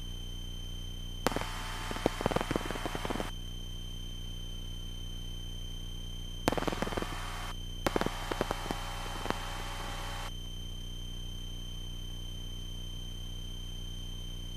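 Aircraft radio and intercom audio: a steady low hum with a thin high whine, broken three times by bursts of radio hiss and crackle, the longest about two seconds. The radio hissing is a fault in this aircraft's radio setup.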